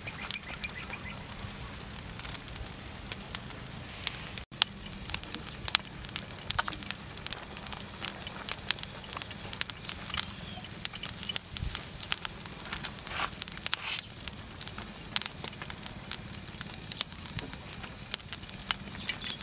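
Charcoal fire crackling and popping under a whole pig roasting on a spit, with many irregular sharp pops.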